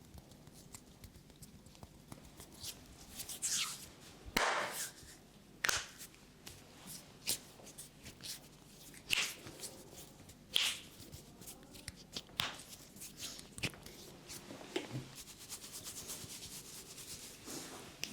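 Hands rubbing over a person's head and hair in a barber's head massage, with several sharp slaps or pats at irregular intervals.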